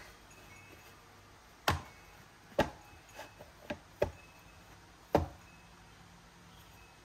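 Soft bread dough being kneaded by hand, with about half a dozen short thumps at uneven intervals as it is pressed and knocked down.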